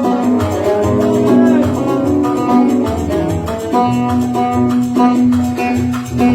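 An oud playing an instrumental passage of a Yemeni Sanaani song: a run of quick plucked notes over a repeated low note.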